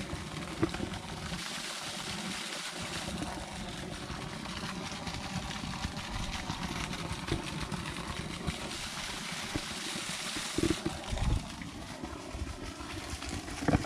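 Water running in a steady, hissing trickle, over a low uneven rumble, with a few knocks near the end.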